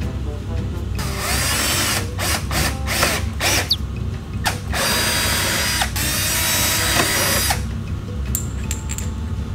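Ratchet wrench tightening a go-kart seat-mount bolt: bursts of rapid ratchet clicking, the longest about three seconds, with single clicks between them.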